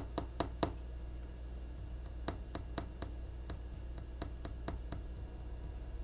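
Quiet room with a steady low hum and faint small clicks: a quick run of four at the start, then single ones scattered through the middle.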